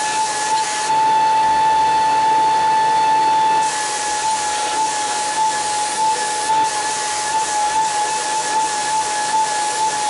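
Belt grinder running with a steady whine while a steel blade is ground on it, giving a hiss. The hiss drops out about a second in, as if the blade is lifted off the belt, and comes back after about three seconds.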